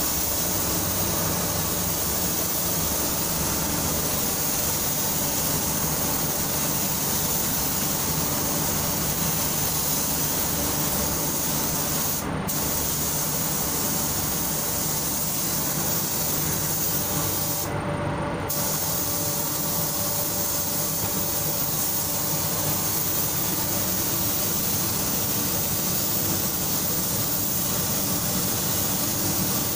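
Compressed-air gravity-feed paint spray gun hissing steadily as it sprays paint, the hiss cutting out for a moment twice near the middle as the trigger is let go. A steady low mechanical hum runs underneath.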